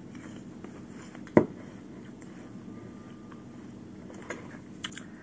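Quiet chewing of a mouthful of Greek yogurt and apple, with one sharp knock about a second and a half in. Near the end a metal spoon clicks a few times against a ceramic bowl.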